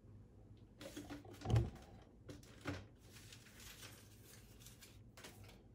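Soft, irregular rustling and handling noises from fly-tying materials being searched through, with a dull knock about one and a half seconds in and a small click a second later.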